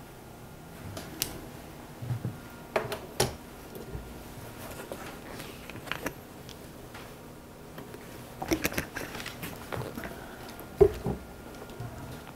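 Quiet classroom room tone with a faint steady hum, broken by scattered small clicks, taps and knocks from people handling things, the sharpest just before the end.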